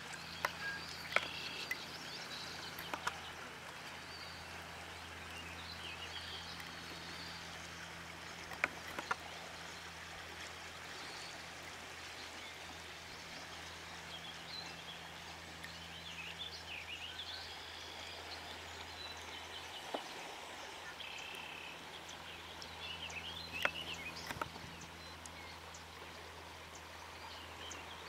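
River ambience: birds chirping on and off over running water, with a low steady hum and a scattering of sharp clicks and snaps.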